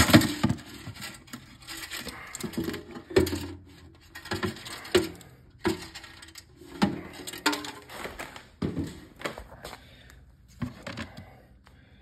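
Cut pieces of copper winding wire from a washing-machine motor being poured and shaken from a bucket into a container on a scale: irregular clinking and rattling, loudest at the start and thinning out near the end.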